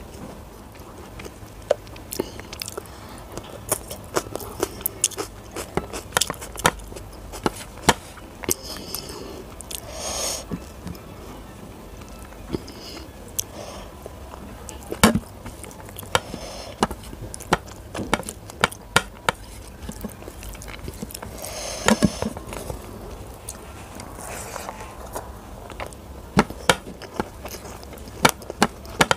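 Close-miked eating sounds: chewing with irregular wet mouth clicks and lip smacks. Near the end, rice and curry squish as they are mixed by hand.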